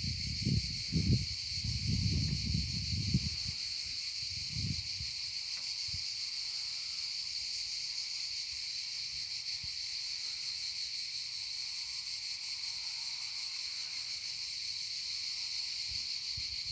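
A steady, unbroken high-pitched chorus of insects chirring, with low rumbling thumps in the first few seconds.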